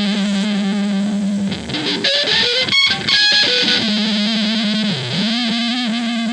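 Distorted electric guitar music: a long held low note that breaks, a second and a half in, into a flurry of quick stepping and sliding notes, then returns to the held note, which bends down and back up near the end.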